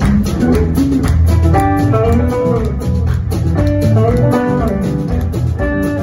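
Live rock band playing: electric guitars and bass guitar over a drum kit. A lead guitar line bends its notes up and back down, twice.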